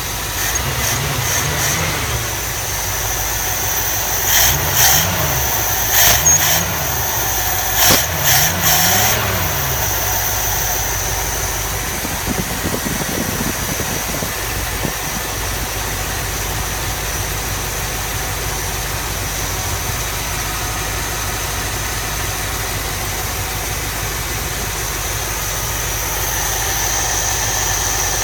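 1980 Chrysler Cordoba's 318 V8 running: revved up and back down several times between about four and ten seconds in, then idling steadily.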